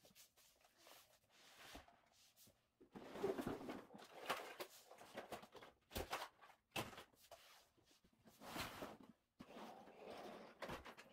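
Faint rustling and handling of children's books and plastic toys while tidying, with a few sharp knocks and clicks as things are set down or moved.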